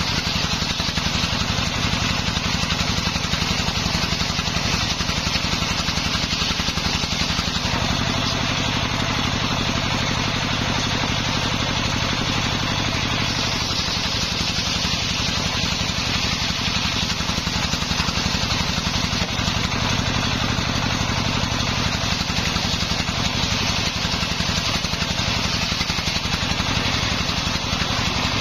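Homemade belt-driven table circular saw ripping dry waru (sea hibiscus) planks, the blade's cutting hiss over the steady running of the engine that drives it. The sound is continuous and even, with no stops.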